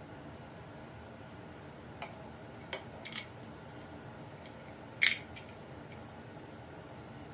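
Scattered light clicks and metallic clinks of hand tools and fittings being handled, the loudest about five seconds in, over a steady low background noise.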